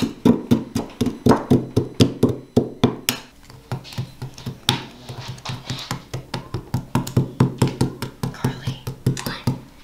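Hand picks scraping and chipping at a plaster fossil-dig block: a rapid, irregular run of sharp clicks and scratches, several a second.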